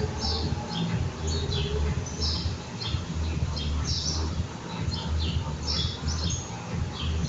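French bulldog snoring: a low rumble that swells and fades with each breath, along with short high-pitched squeaks.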